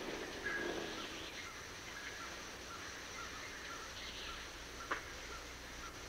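Faint natural outdoor ambience: short high chirps repeating every half second or so, and a single sharp click about five seconds in.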